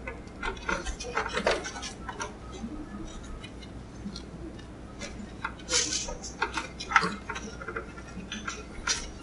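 Gloved hands handling bundles of power-supply cables and PCIe power plugs at a graphics card: scattered plastic clicks, taps and rustling, the sharpest clicks about six to seven seconds in. A low steady hum runs underneath.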